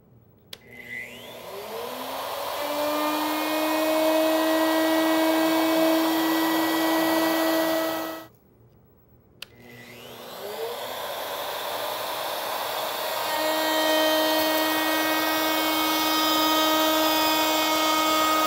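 Handheld router switched on, its motor whining up to full speed and running steadily as a bearing-guided profile bit cuts along a board's edge. The run breaks off suddenly about eight seconds in, then the router starts up and runs again for a second pass with the bit lowered.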